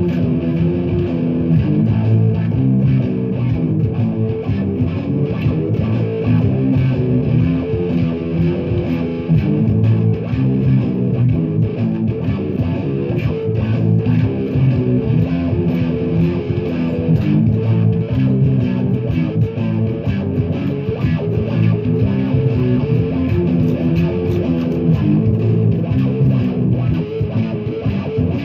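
Double-neck electric guitar played in an improvised jam: a continuous flow of picked notes and chords with no pauses.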